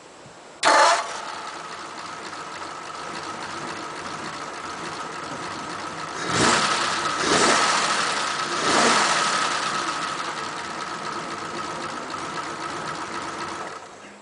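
Warm Ford flathead V8 engine restarting: it catches suddenly about half a second in, runs steadily, is revved briefly three times in the middle, then is switched off and stops near the end.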